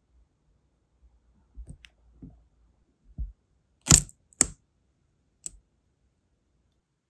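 Hard clicks and taps as a brass wax seal stamp is worked off the set sealing wax on a quartz coaster: a few soft knocks, then two sharp clicks about half a second apart near the middle and a lighter click a second later.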